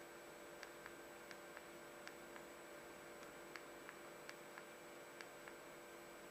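Faint clicks of an Alcatel OT-355 phone's navigation key, pressed and released in pairs about every three-quarters of a second as the menu is scrolled, over a steady low hum.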